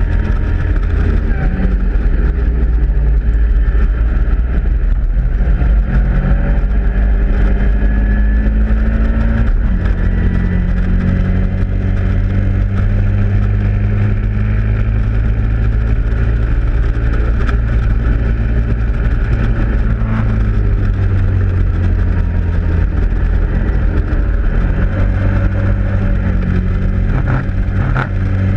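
Caterham Roadsport race car's Ford Sigma four-cylinder engine at racing revs, heard from the open cockpit: it climbs through the gears with upshifts about six and ten seconds in, holds high revs, drops back when lifting and shifting down about twenty seconds in, then climbs again near the end. A steady wind and road noise runs underneath.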